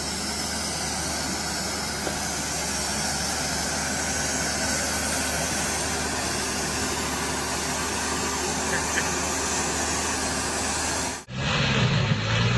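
Diesel engine of a log-laden semi-truck running with a steady low hum under a loud even hiss. About eleven seconds in it cuts off abruptly and a louder, deeper truck engine takes over.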